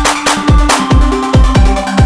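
Electronic dance music with a heavy kick-drum beat, about three hits a second, and sustained synth tones.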